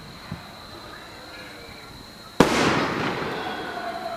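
Fireworks display: a faint thump near the start, then a firework shell bursting with a sharp, loud bang about two and a half seconds in, its boom fading slowly.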